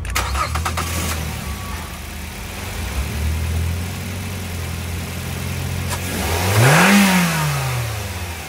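2010 Ford Focus engine idling steadily, then revved once about six and a half seconds in. The pitch climbs quickly and sinks back to idle over about two seconds.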